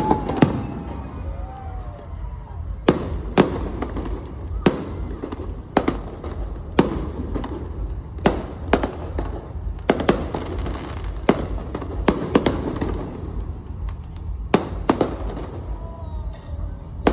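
Aerial fireworks bursting: sharp bangs at irregular intervals, some in quick pairs, over a steady low rumble.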